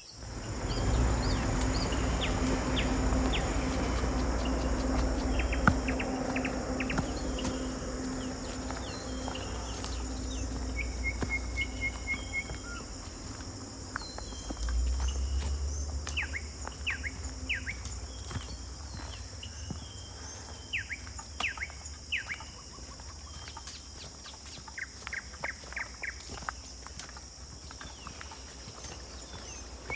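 Forest birds calling: many short downward-sliding chirps and, about a third of the way in, a brief rapid trill, over a steady high-pitched insect drone. A low rumble sits under the first several seconds and comes back about halfway through.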